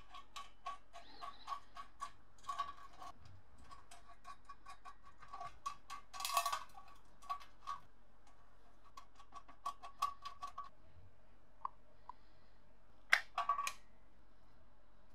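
Light, irregular metallic clicks and taps, each with a brief ring, as small metal parts are handled. A short louder cluster of clicks comes near the end.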